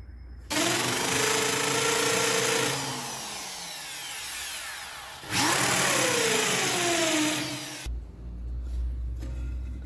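Handheld electric drill boring into a wooden part, run twice: it starts about half a second in and again about five seconds in. Each time its whine drops in pitch as the motor slows, and it stops a little before the end.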